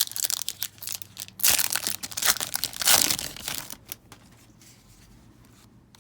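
A trading card pack wrapper being torn open and crinkled by hand, in rapid crackly rips for about four seconds, loudest in the middle, then fading to faint handling.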